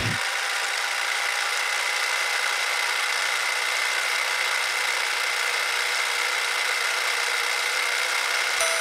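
Film projector running: a steady whirring hiss with a thin, high, unchanging whine.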